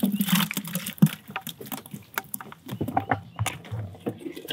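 Water sloshing and live mullet flicking in a plastic bait bucket, with scattered clicks and knocks of handling. Near the end come lower knocks as the boat's livewell hatch is lifted.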